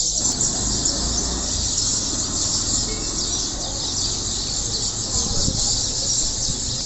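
Dense, continuous chorus of many small birds chirping together, a steady high chatter with no pauses, over a faint low rumble.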